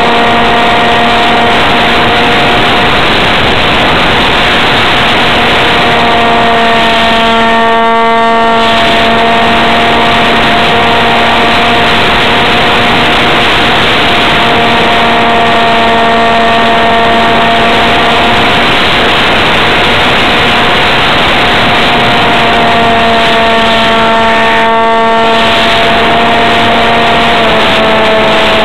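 Parkzone F27B Stryker's brushless electric motor and pusher propeller whining at a steady pitch under loud wind rush over the microphone in flight. The wind noise dips briefly twice and the motor pitch steps down slightly near the end.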